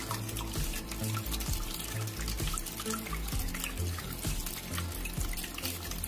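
Water trickling and dripping from a small tabletop waterfall fountain, with background music playing over it.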